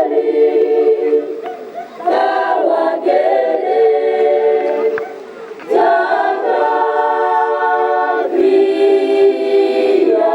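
Choir singing in harmony, held chords in phrases with brief breaks about two seconds in and again around five and a half seconds in.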